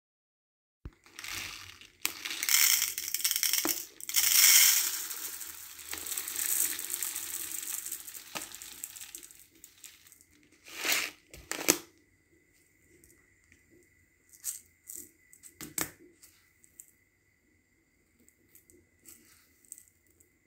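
Dry rice grains poured into a plastic bowl: a dense rattling hiss lasting several seconds. Two sharp knocks follow, then scattered light rustles of fingers moving through the rice.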